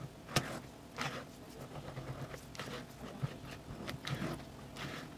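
Silicone spatula folding chocolate into whipped egg-and-sugar batter in a glass bowl: repeated soft wet scraping strokes, with one sharp tap near the start.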